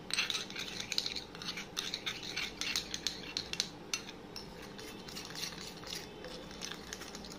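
Metal spoon stirring and scraping a paste of mashed banana and sugar in a ceramic bowl: a run of quick clinks and scrapes, busier in the first half and lighter after. The mixing is meant to dissolve the sugar fully.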